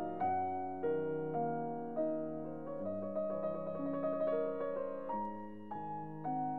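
Background piano music: slow, gentle notes, a new note or chord about twice a second, each left to ring and fade.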